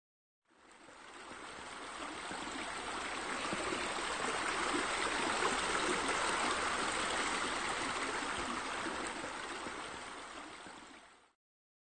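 Running water, a steady splashing flow. It fades in about half a second in, swells toward the middle and fades out just before the end.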